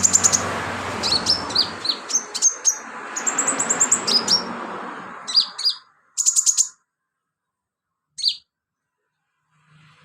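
Sunbird singing a fast run of high-pitched chirps and trills. After about five seconds the song breaks into a few short bursts, and it stops at about eight seconds.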